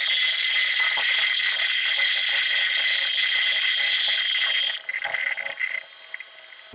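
Metal lathe cutting a taper on a steel bar between centres, with a steady high-pitched whine and hiss from the tool on the turning work. It drops off sharply about five seconds in.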